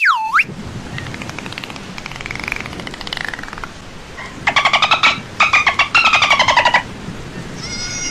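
Dolphin calls: a quick whistle sweeping down and back up at the start, then faint rapid clicking, then loud buzzing click trains in the middle, with new gliding whistles near the end.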